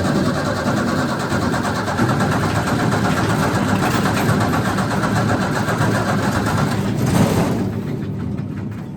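Wood chipper's gasoline engine running after being started, then surging briefly about seven seconds in and dying away as it stalls near the end.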